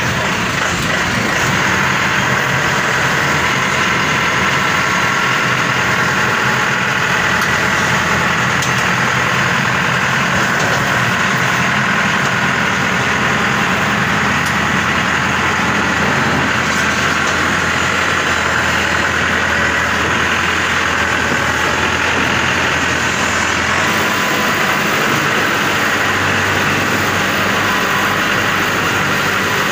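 Maxxi Bimo 102 SS crawler combine harvester's engine running steadily as the machine crawls down loading ramps off a truck, with a change in engine note near the end.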